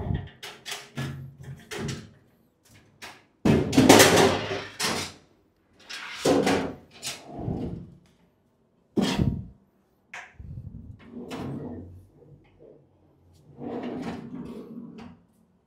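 Steel filing-cabinet drawer being worked onto its ball-bearing metal slides: irregular metal clanks and knocks, with a longer rasping stretch about four seconds in.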